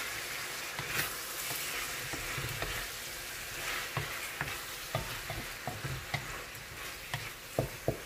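Eggplant sizzling as it sautés in a pan while being stirred, with a cooking utensil knocking and scraping against the pan now and then, more often in the second half.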